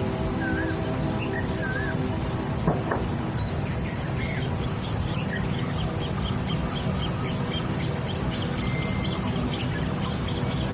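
Wild birds calling and chirping over a steady high drone of insects. A few short wavy calls come in the first two seconds, then a run of quick high chirps follows through the middle.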